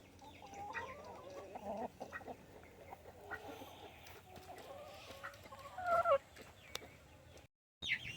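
Backyard chickens clucking softly, with one louder call falling in pitch about six seconds in.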